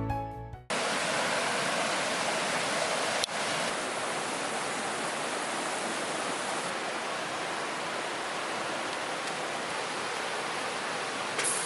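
Heavy rain falling in a downpour: a steady, even hiss.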